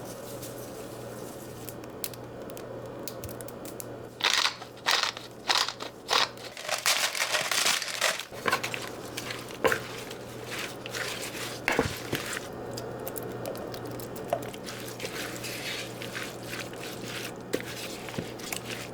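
A flurry of crinkling, crunching handling noises starting about four seconds in and thinning out after about twelve seconds, densest in the middle, followed by fainter scattered clicks and rustles over a steady low hum.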